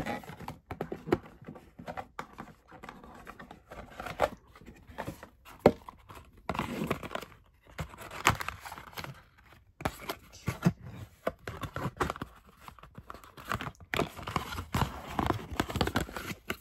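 Cardboard and paper packaging being handled and opened, with irregular rustles, scrapes and light knocks on a wooden table.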